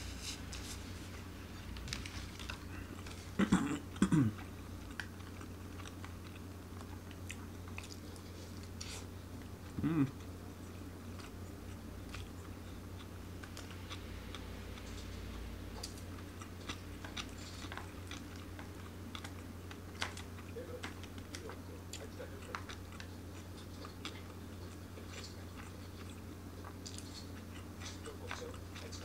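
A man chewing food and eating with chopsticks, with many small clicks of the chopsticks against a plastic bento tray over a low steady hum. Twice, about three to four seconds in and again about ten seconds in, there is a brief, louder sound from his voice.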